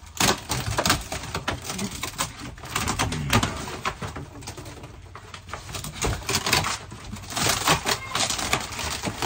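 Rotten wood and wall panelling being pulled and broken out of a wall corner by hand: irregular cracking, snapping and knocking.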